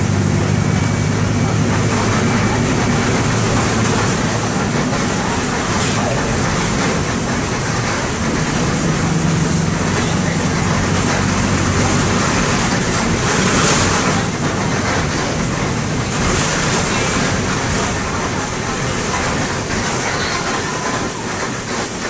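MAN D0834 four-cylinder inline turbodiesel of a Volkswagen 17-230 OD Euro V bus running, heard from aboard the bus. A low, steady engine drone stands out for the first few seconds and again briefly midway, over a continuous rumbling noise.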